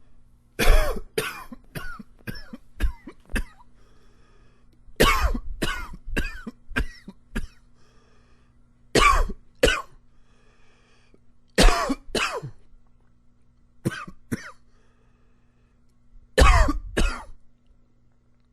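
A man coughing in fits: a quick run of about six coughs near the start, another run of about six about five seconds in, then shorter bouts of one to three coughs every few seconds.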